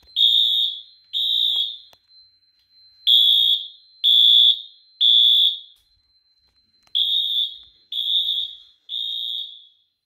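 Electronic fire alarm horns sounding the temporal-3 (code 3) evacuation pattern: groups of three half-second high-pitched beeps, each group followed by a pause. A faint steady high tone runs underneath.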